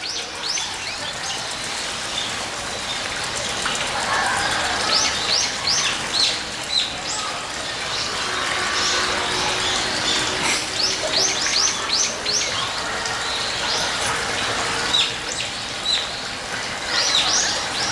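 Birds chirping: runs of short, high, quickly falling chirps several times through, over a steady background hum.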